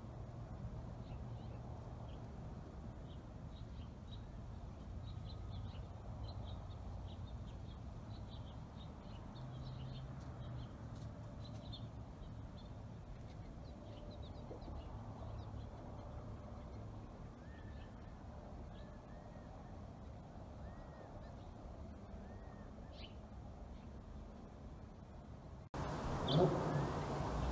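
Quiet outdoor ambience with small birds chirping faintly and sporadically over a low steady hum; the slow-moving motorized dolly itself makes virtually no noise. Near the end the sound cuts suddenly to a louder, fuller ambience with a bird chirp.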